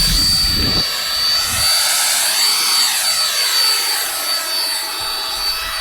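Electric air pump running, blowing air through the forge's air pipe: a loud, steady rushing hiss with a steady motor whine. Some low rumbling comes in the first second or two.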